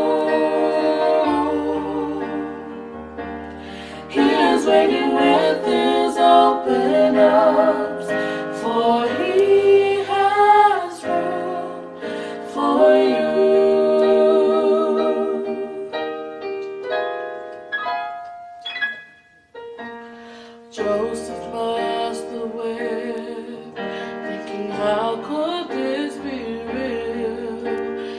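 Three women's voices singing a slow gospel song in close harmony, with long held notes and vibrato, over a keyboard accompaniment. The music drops away almost to nothing for a moment about two-thirds of the way through, then resumes.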